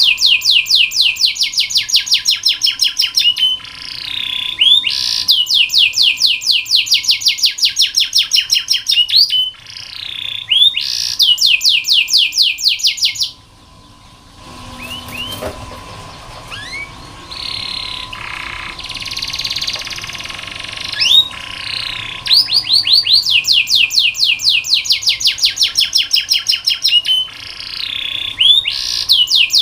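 Domestic canary singing: long rolls of rapidly repeated high notes, broken in the middle by a quieter stretch of softer, scattered notes before the rolls resume.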